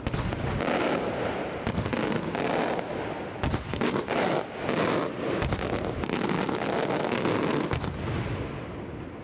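Aerial fireworks going off in rapid succession: many sharp bangs over a continuous crackle. The barrage thins out near the end.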